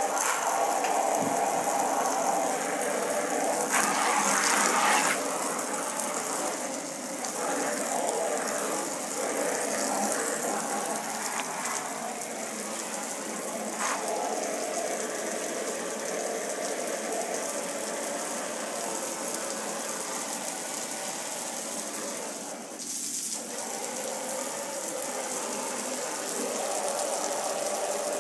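Water spraying steadily from a hand-held hose spray nozzle into a plastic bucket, switched on suddenly at the start and running on, with a gushing, rattling spatter.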